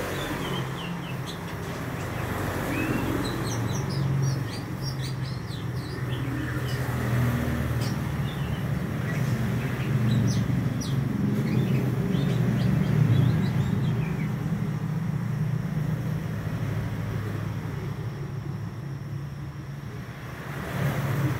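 A young male Oriental magpie-robin of the white-breasted form singing in quick, short, high whistled notes. The singing goes on for about the first fourteen seconds and then stops. A steady low rumble runs underneath throughout.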